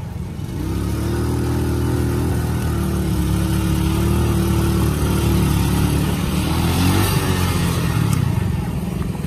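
Small motorcycle engine pulling a passenger sidecar, running under way. Its pitch rises about half a second in, then holds fairly steady with small wavers.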